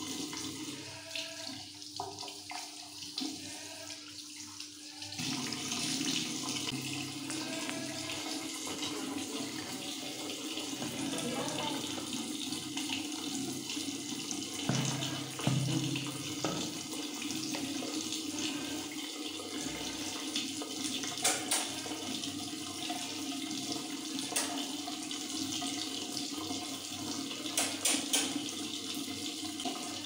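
Bathroom tap running steadily into a ceramic washbasin. The rush of water gets louder about five seconds in. A few sharp clicks cut through it near the end.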